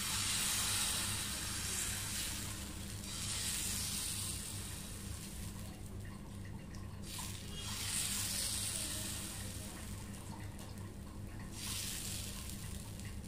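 Atta dosa batter sizzling on a hot oiled non-stick tawa as a ladle spreads it round; the hiss swells and fades in waves every few seconds. A faint steady low hum runs underneath.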